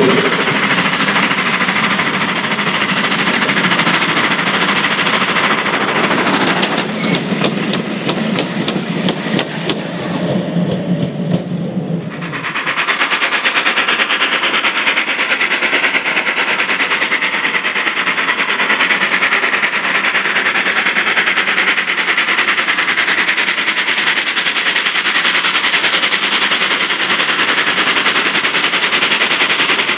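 Steam tank engine 'Terrier' No.2678, a small 0-6-0T, hauling coaches: first a steady running sound, then, after an abrupt change about twelve seconds in, working hard with a rapid, even stream of sharp exhaust beats.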